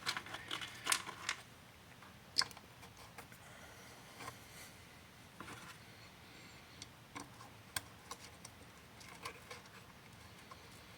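Scattered, irregular light clicks and ticks of hand work on the air intake: a new mass airflow sensor being seated and fastened with its T15 Torx screws.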